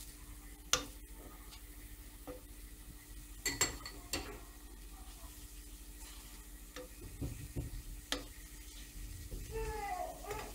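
A metal spoon spreading chile salsa over nopal paddles in a hot frying pan, with a faint sizzle and a few sharp clicks as the spoon knocks against the pan.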